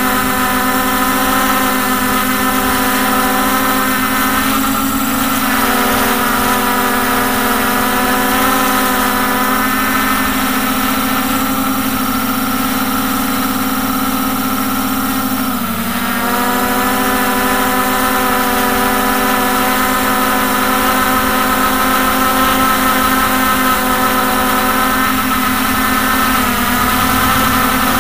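Hubsan X4 H501S quadcopter's four brushless motors and propellers humming steadily in flight. The pitch dips briefly about halfway through and comes back up.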